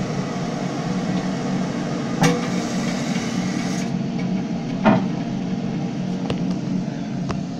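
Two sharp knocks about two and a half seconds apart, as of the porcelain tank or tank lid of a 2001 Eljer Savoy toilet being handled, over a steady low hum.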